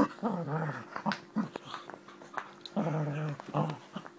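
Springer spaniel growling in play-fighting. There are two runs of throaty growls, one at the start and another about three seconds in, with a few short clicks between them.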